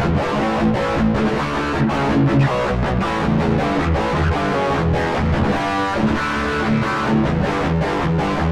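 Electric guitar played through a Korg AX3000G multi-effects processor on a distorted preset built on its SHRED amp model, with treble and middle set to 8: distorted chords and riffs with frequent picked attacks.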